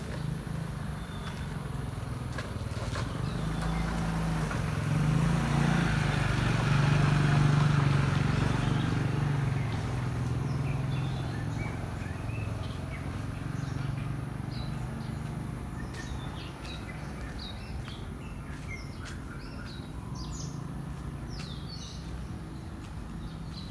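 A vehicle passes by, its rumble swelling to a peak about seven seconds in and then fading. In the second half, small birds chirp repeatedly over a steady high-pitched tone.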